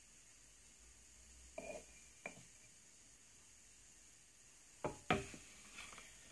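Metal spoon knocking and scraping against a food processor bowl and glass jar while thick peanut butter is scooped out: a few soft knocks a second and a half to two seconds in, then a louder cluster of knocks near the end.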